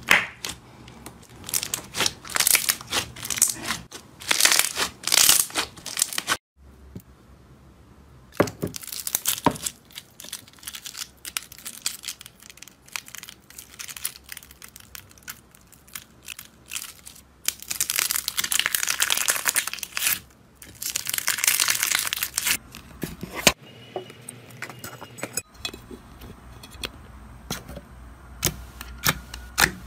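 Slime squeezed, stretched and poked by hand close to the microphone, in several separate takes: squelching with quick crackling and popping of trapped air bubbles. The densest, loudest crackling comes a little past the middle, where a clear bubbly slime is pressed.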